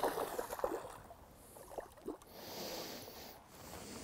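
A hooked bass thrashing and splashing at the water's surface beside the boat. The splashing is loudest in the first second, followed by a few smaller splashes and water noise.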